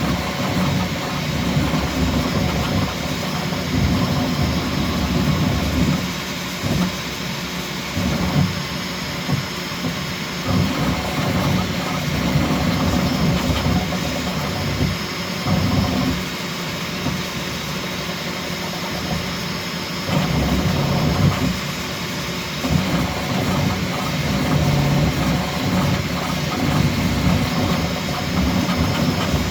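Bambu Lab X1C 3D printer printing PLA at its fastest speed setting: stepper motors buzzing and changing pitch constantly with the rapid print-head moves, over a steady faint high tone.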